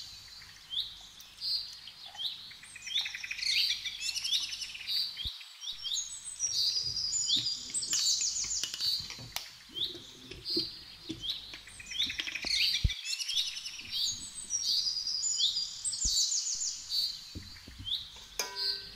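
Small birds chirping over and over in high, quick calls and fast rattling trills, with a few brief moments where the sound cuts out.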